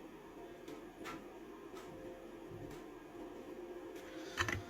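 Faint taps and clicks of small parts being handled during a headlamp battery repair, with a sharper cluster of clicks about four and a half seconds in, over a low steady hum.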